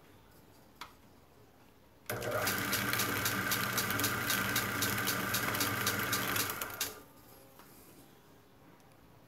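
Electric coil-winding machine starts abruptly about two seconds in and spins its wooden coil form, loaded with enamelled copper-wire motor coils, for about five seconds. It runs with a steady motor hum and a rapid, even ticking, then winds down and stops.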